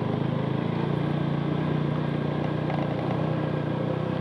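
Motorcycle engine running steadily at an even low speed, heard from the rider's own bike.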